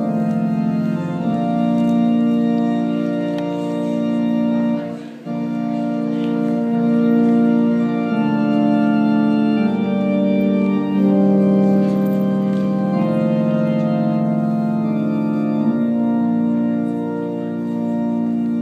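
Organ playing slow, held chords that change every couple of seconds, with a brief break about five seconds in.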